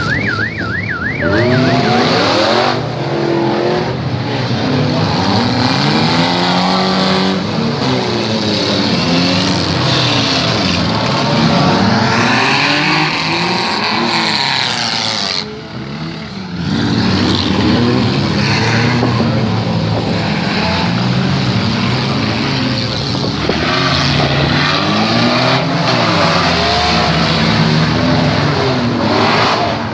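Several demolition-derby cars' engines revving up and down over and over, with tyre noise. A short warbling tone sounds at the very start, and the din drops briefly about halfway through.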